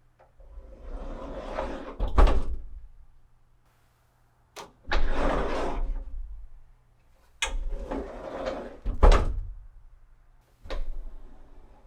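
Sliding door rolling along its track, opening and shutting several times at different speeds, with a sharp thump as it closes.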